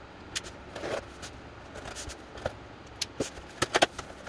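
Cardboard shipping box being opened by hand, its flaps pulled open: a string of short scrapes and crackles, busiest near the end.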